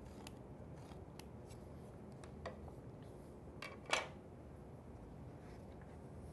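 Light pencil scratches and a few small taps and clicks as a speed square and a scrap block of lumber are handled and set down on a wooden board during layout marking. The sharpest tap comes about four seconds in.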